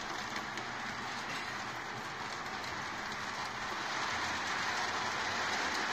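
Model train running on its track: a steady rolling clatter and hiss of wheels on rails as the lit passenger cars pass close by.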